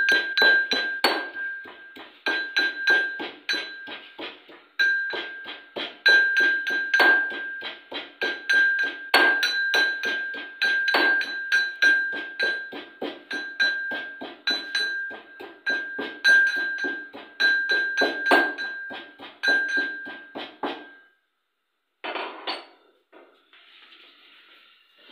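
Metal pestle pounding ginger in a stainless-steel mortar: rapid, regular strikes, about four a second, each with a metallic ring. The pounding stops about 21 seconds in.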